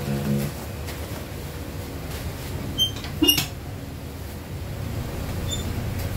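Packing material being handled: bubble wrap and a white plastic packing sheet rustling, with two sharp clicks about three seconds in, over a steady low hum.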